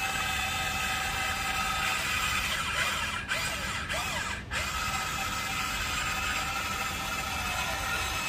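Huina RC excavator's electric drive motors and gearboxes whining as it drives on its tracks. The pitch slides up and down in the middle, and the sound briefly cuts out three times.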